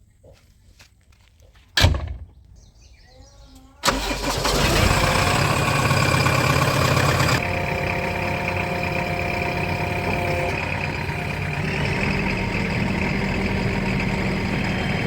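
A single sharp thump about two seconds in, then a heavy diesel engine starts abruptly and runs loudly, settling a few seconds later into a steady, slightly quieter run.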